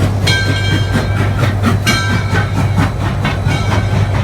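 Southern Railway 630, a 2-8-0 steam locomotive, running with a steady low rumble and a regular beat of about four to five knocks a second. Its Nathan six-chime whistle sounds two short blasts, a chord of several pitches, about a second and a half apart.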